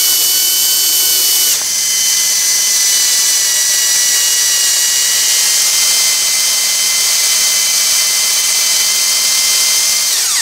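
Cordless drill running continuously at steady speed, boring a hole into the cast iron column of a Bridgeport milling machine. Its motor whine shifts slightly about a second and a half in, and near the end it winds down and stops.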